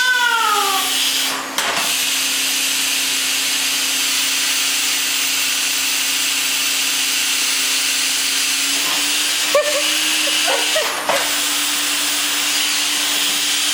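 Vacuum cleaner running steadily: a loud, even hiss with a steady motor hum underneath, dipping briefly about a second and a half in.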